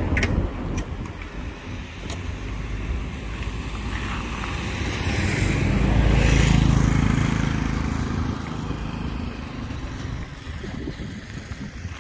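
A road vehicle passing on a village road, growing louder to a peak about six seconds in and then fading, over a steady low rumble of wind on the microphone.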